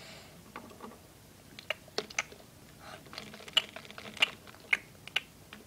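Small hard plastic toy figures clicking and tapping against a plastic toy food bowl and tabletop as they are made to eat. The clicks are sharp and irregular, a dozen or so in quick succession, starting about a second and a half in and stopping about a second before the end.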